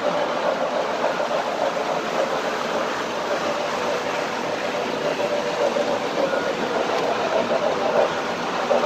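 O-gauge model trains running on three-rail track, including an MTH RailKing 2-8-0 steam locomotive: a steady rumble and rattle of wheels and motors on the rails, a little louder near the end.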